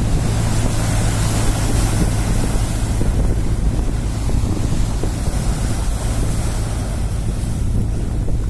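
Strong wind buffeting the microphone with a steady low rumble, over choppy sea waves washing and splashing against shoreline rocks.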